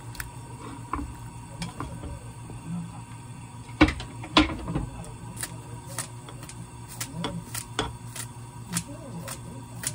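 Two sharp knocks a little before the middle, then kitchen scissors snipping Welsh onion over a pot of stew, a crisp snip about every half second.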